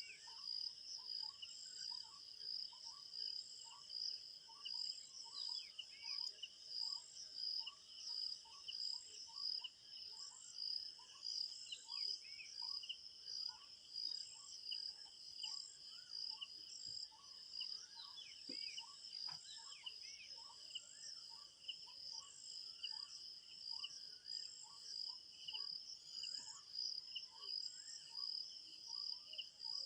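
Forest ambience: a steady high-pitched insect chorus, like crickets, with birds chirping through it, including one giving short rising chirps about twice a second.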